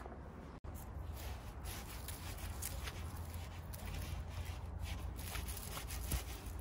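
A small hand garden tool scraping and scratching through dry, loose soil around a young fruit tree's trunk, a run of short, uneven scrapes as the surface is loosened.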